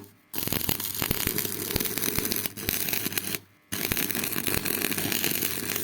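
Electric arc welding: a continuous crackling arc over a low electrical hum. The arc breaks off briefly about three seconds in and is struck again.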